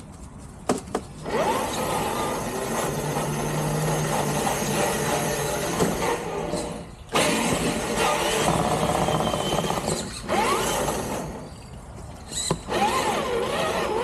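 Traxxas TRX-4 RC truck's electric motor and geared drivetrain whining, the pitch rising and falling with the throttle. It starts about a second in and cuts out briefly three times.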